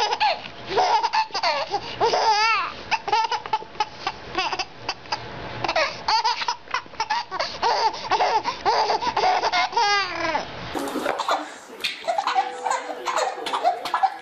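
A baby laughing hard: repeated high-pitched belly laughs and squeals in quick bursts, some wavering up and down, with gasping breaths between. About eleven seconds in another baby takes over, still laughing.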